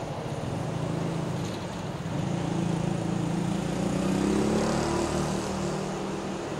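Diesel engines of a JR Shikoku 2000 series limited-express railcar running while the train stands still, a steady engine note that swells and rises slightly in pitch about two-thirds of the way through, then eases back.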